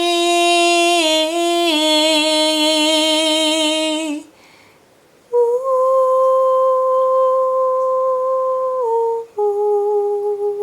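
A woman's unaccompanied voice holds a long sung note that steps down in pitch and stops about four seconds in. After a short pause she hums two long closing notes, the second one lower.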